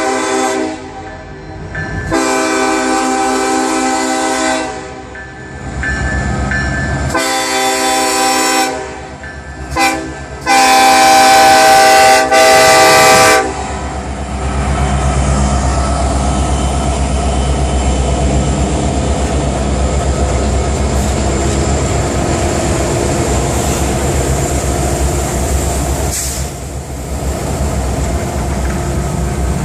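Diesel locomotive multi-chime air horn sounding a run of blasts in the grade-crossing pattern: long, long, short, then a final long blast held about three seconds. After the horn stops, the low, steady rumble of the SD70M-2 and SD40-2 diesel locomotives and the train's wheels on the rails runs on as the train passes.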